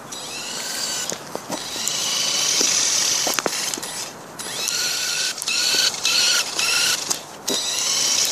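Small electric drive motors of a homemade model car whining at speed as it runs on asphalt. The high whine rises as it picks up speed and cuts out and restarts several times as it is driven in short bursts, with scattered sharp clicks.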